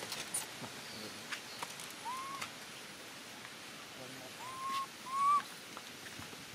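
Baby macaque cooing: three short, clear calls, each rising and then levelling off. One comes about two seconds in and two close together in the second half, with a few faint clicks around them.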